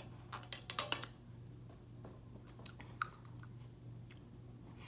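Quiet mouth sounds of someone tasting a sparkling drink: lip smacks and small clicks, several in the first second and a few more about three seconds in.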